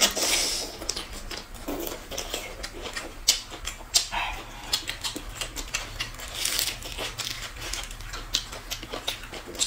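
Close-up eating sounds: crisp lettuce wraps being crunched and bamboo shoots being sucked and chewed. It comes as an irregular run of wet mouth clicks, smacks and crunches.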